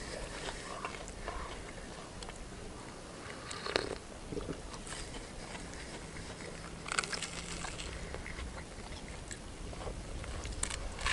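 Someone biting and chewing a grilled cheese sandwich, irregular small crunches and mouth sounds, with a louder crisp sound about four seconds in and again about seven seconds in.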